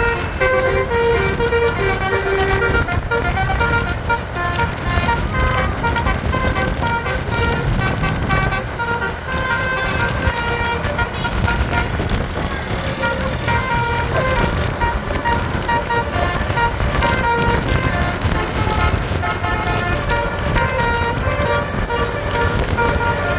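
Bus's Basuri multi-tone 'telolet' horn sounding a quick run of short notes at changing pitches, over the low rumble of the engine and traffic.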